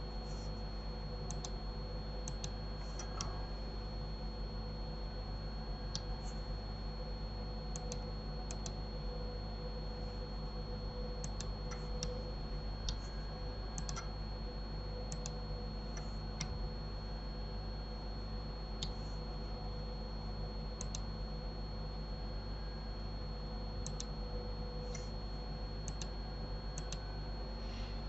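Computer mouse and keyboard clicks, sharp and irregular, coming every second or two, over a steady low electrical hum with a faint high whine.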